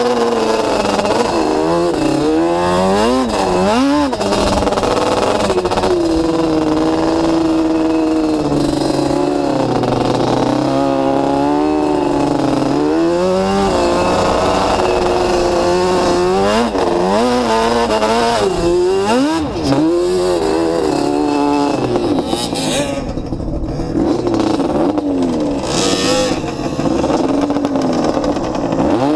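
Off-road motorcycle engine ridden hard over sand, revving up and down again and again, its pitch climbing and dropping every second or two. It holds a steadier pitch for a few seconds in the middle and eases off near the end.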